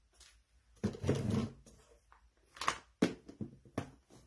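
Handling noises as a plastic tub and craft supplies are moved and set down on a table: a rustle about a second in, then a few sharp knocks in the second half.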